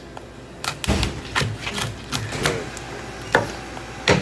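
Chef's knife chopping into a cooked lobster's shell on a cutting board: a run of irregular knocks and cracks, the loudest two near the end.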